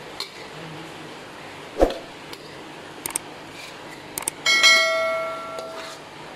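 Metal spatula knocking and scraping in a steel wok while stirring scrambled egg: a sharp knock, a few light clicks, then a strike that sets the wok ringing with a bell-like tone, fading over about a second and a half.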